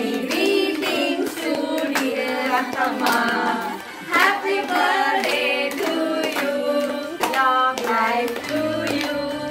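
A group of women clapping hands in a steady rhythm, about two claps a second, along with singing.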